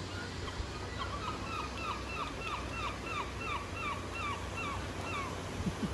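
A gull calling: a run of about a dozen notes, each sliding down in pitch, about three a second, stopping about a second before the end.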